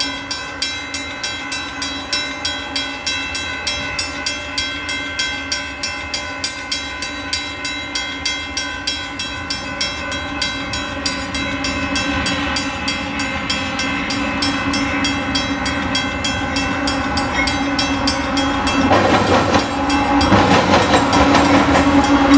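Union Pacific diesel freight locomotives approaching, growing louder over the last few seconds as they near. A steady ringing with regular strikes, about one and a half a second, runs underneath throughout.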